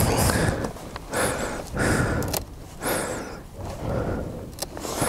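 A person breathing hard close to the microphone, with heavy breaths about once a second.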